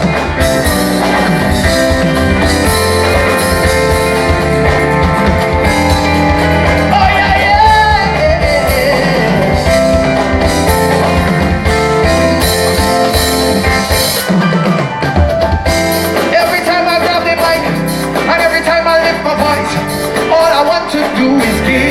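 Live band playing an upbeat soca-style gospel groove with a steady drum kit and singing over it; the bass drops out briefly about two-thirds of the way through.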